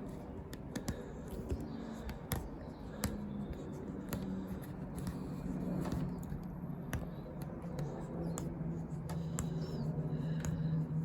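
Hand work fitting window glass into its rubber seal: scattered light clicks and taps of handling and tools, over a low steady hum that grows louder in the second half.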